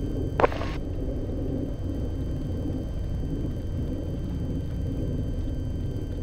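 Light aircraft's engine and propeller running steadily, heard inside the cabin as the plane rolls along the runway after landing. A brief sharp crackle comes about half a second in.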